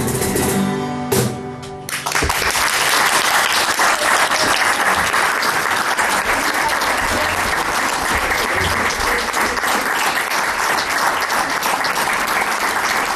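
Several acoustic guitars play the last chords of a song, then about two seconds in an audience breaks into steady applause.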